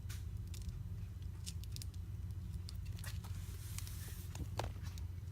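Small scattered clicks and scrapes of a razor blade prying and breaking cracked glass off an iPad Pro screen, over a steady low hum.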